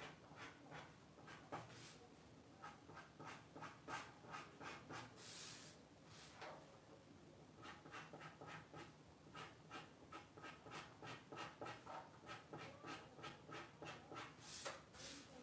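Pen scratching on paper in faint, short, quick strokes, several a second in uneven runs, with one longer stroke about five seconds in.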